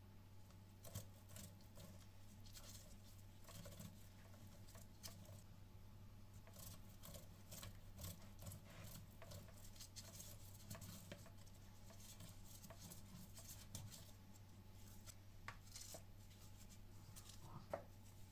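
Boiled eggs being grated on a stainless steel box grater into a plastic bowl: faint, irregular scraping strokes, with a sharper click near the end as the grater is lifted. A low steady hum runs underneath.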